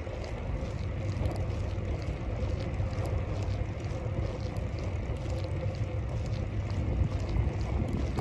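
Steady wind rush and low rumble on the microphone of a moving bicycle, with faint scattered ticks.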